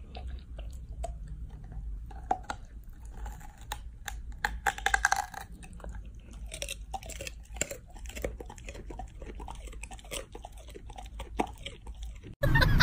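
Golden retriever chewing a purple sweet potato: irregular wet crunching and clicking bites, with a denser burst of crunches about five seconds in. Near the end it cuts off abruptly to a louder, different sound.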